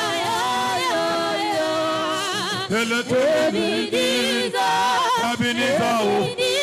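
Worship singing: a voice singing long held, wavering notes in a chant-like line over music.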